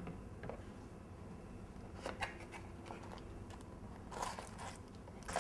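Faint rustling and light clicks of a cardboard phone box being opened and its plastic-wrapped accessories handled, in short bursts about two seconds in and again a little after four seconds.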